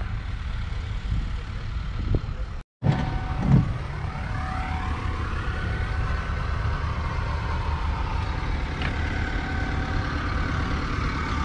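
BMC 3.0-litre four-cylinder diesel engine of a 1965 Austin VAK 100 truck idling with a steady low rumble. The sound cuts out briefly near three seconds in, and from about four seconds a higher whine rises and then holds steady over the rumble.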